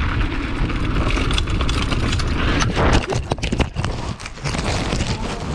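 Mountain bike rattling and clattering over a rocky trail, then a flurry of hard knocks and scrapes from about three seconds in as the bike and rider crash.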